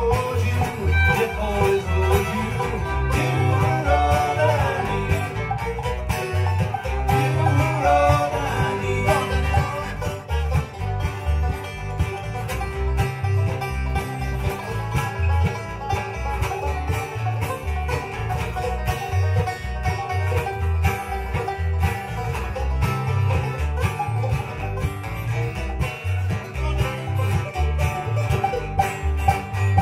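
Bluegrass band playing an instrumental stretch: fiddle, banjo and acoustic guitars together over a steady low beat.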